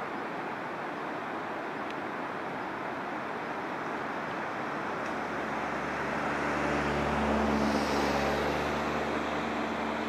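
A steady rushing noise, with a motor vehicle's engine hum coming in about halfway through, growing louder to a peak near the end and then easing slightly.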